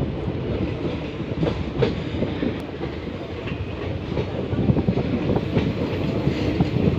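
Passenger train running along the track, heard from its open doorway: a steady rumble of the coaches with the wheels clacking over the rail joints.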